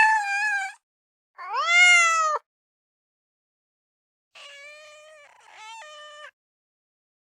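A cat meowing four times: two loud meows, the second rising and then falling in pitch, then two fainter meows a couple of seconds later.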